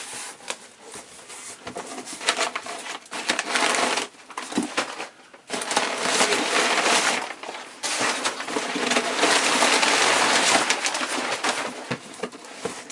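Crumpled kraft packing paper rustling and crinkling as hands rummage through it and pull it out of a cardboard box. It comes in patchy handfuls at first, then a dense, continuous crinkling through the middle stretch.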